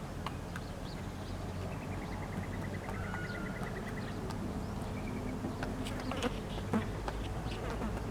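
A steady low buzz, with a rapid high bird trill about two seconds in and a few faint chirps.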